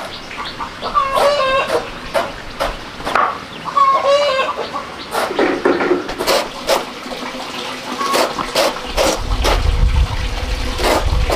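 Chickens clucking, with two drawn-out calls in the first few seconds. In the later part a string of sharp knocks follows, a knife chopping through a banana stem.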